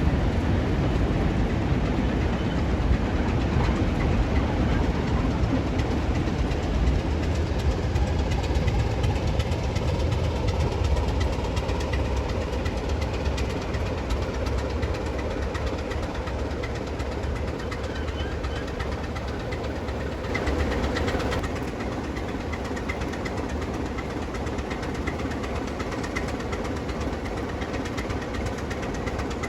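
Heritage diesel locomotive engine running with a heavy, low throb. It grows gradually quieter, with a brief louder spell about twenty seconds in.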